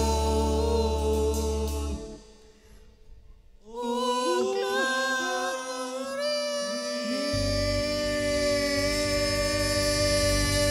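Small live band with a woman singing into a microphone. A held chord over bass stops about two seconds in, and after a short pause she sings a phrase over sustained notes. The bass guitar comes back in about seven seconds in.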